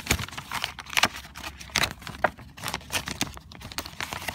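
A clear plastic sleeve crinkling and rustling against a sketchbook's kraft-paper cover as it is slid on by hand, a run of irregular small crackles and scrapes.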